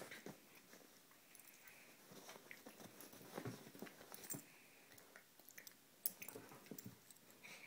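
A husky and a miniature pinscher play-wrestling: faint mouthing and jaw snaps with scattered soft clicks and rustles, the sharpest click about six seconds in.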